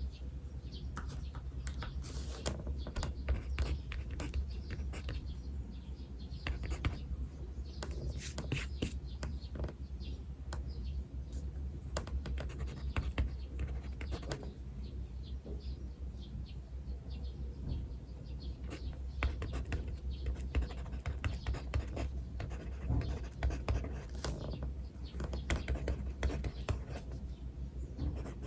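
Pen scratching on paper in quick, irregular strokes of writing, with birds chirping now and then in the background over a steady low hum.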